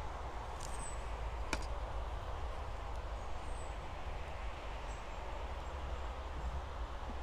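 Steady outdoor background noise with a low rumble, broken by two faint clicks about a second in.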